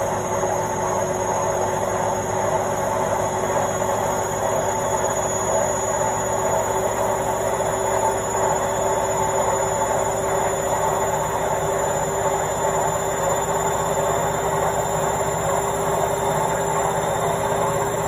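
Indesit front-loading washing machine spinning its drum: a steady rumble and hiss with a motor whine that rises slowly in pitch.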